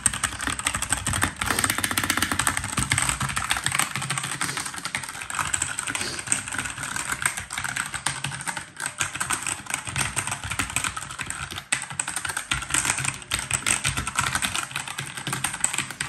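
Rapid, continuous clatter of mechanical key switches on an HP Pavilion Gaming Keyboard 800 as the keys are hammered quickly with one hand.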